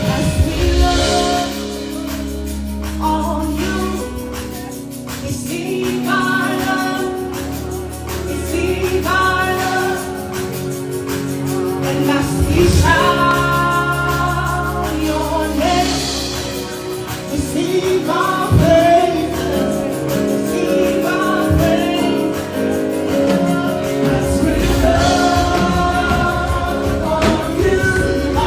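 Gospel choir singing held chords in harmony over a band with bass and cymbal swells.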